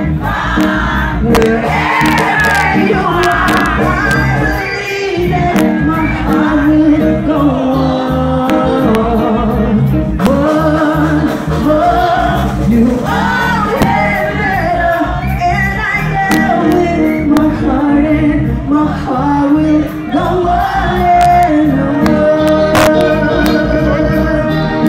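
Live reggae band playing with a woman singing the lead vocal into a microphone over the PA, over a steady beat.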